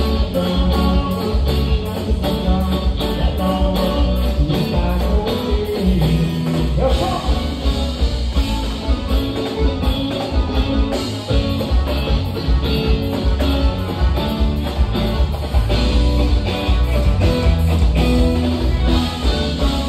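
Live band playing a dance song: a man singing into a microphone over electric guitar, heavy bass and a steady drum beat.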